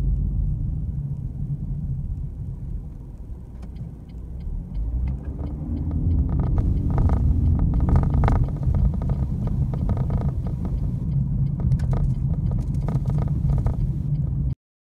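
Low, steady road and engine rumble of a moving car heard from inside the cabin, dipping a few seconds in and building again, with a few light clicks and knocks; the sound cuts off abruptly near the end.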